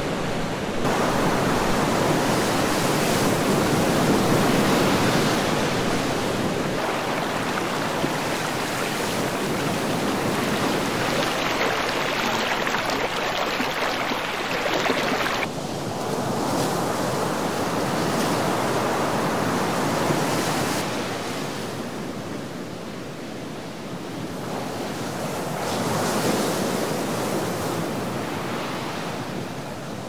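Ocean surf: waves breaking and washing onto the shore in a steady rush. The sound changes abruptly about seven and fifteen seconds in, then swells and fades.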